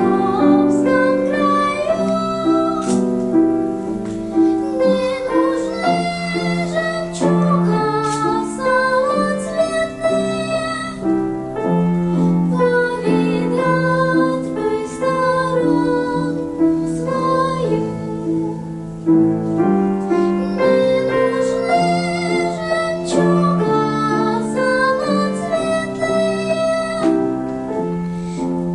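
A young girl singing a melody with piano accompaniment.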